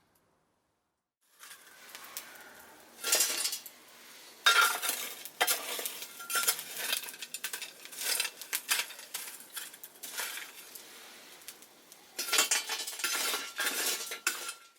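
Metal cooking utensils clinking and scraping against a pan as food is stirred, over a steady sizzle. It starts about a second and a half in, with the loudest clatters in a few bursts, and cuts off suddenly at the end.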